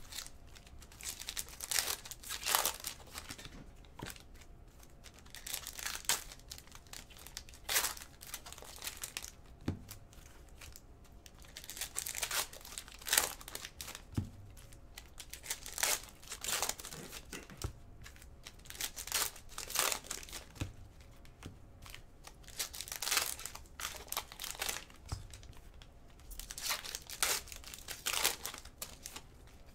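Panini trading-card pack wrappers being torn open and crinkled, in a string of short rustles a second or a few apart.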